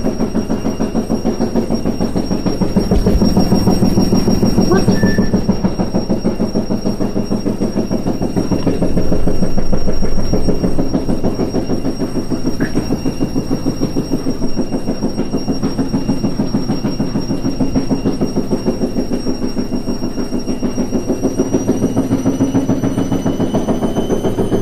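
Indesit IWE 6125 washing machine running with a loud, fast, rhythmic rumbling clatter and a faint high whine that edges upward in pitch near the end: the bad noise the owner is recording.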